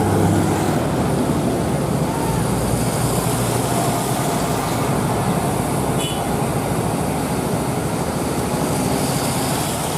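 Heavy truck engine running steadily under load, with road and traffic noise.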